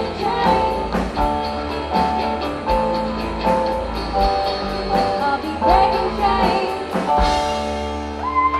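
A teenage girls' rock band playing live: female voices singing held notes over electric guitar, keyboard and a steady drum beat. A cymbal crash comes about seven seconds in, followed by a held chord.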